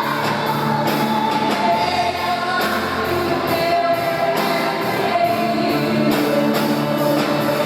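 Gospel worship song: a group of voices singing together over a band with a steady beat.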